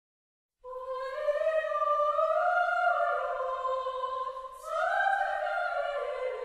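A solo high voice singing long held notes in a classical, operatic style. It enters just over half a second in, and a brief break about four and a half seconds in leads into a second phrase.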